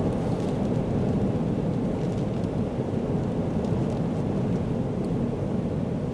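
Storm-force wind buffeting the microphone: a steady, low, rumbling roar with no let-up.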